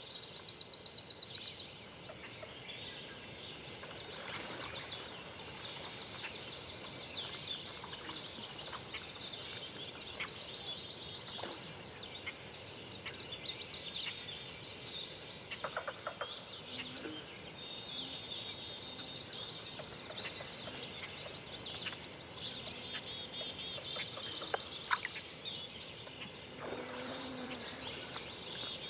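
Songbirds singing in a dawn chorus: many overlapping chirps, warbles and trills, with one loud rapid trill in the first second or two.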